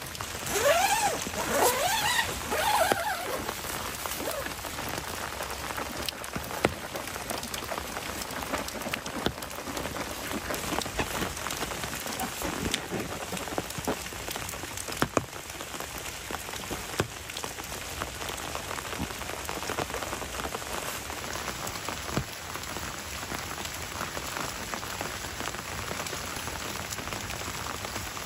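Steady rain falling, with scattered individual drops tapping distinctly. A brief squeaky rubbing sound stands out in the first few seconds.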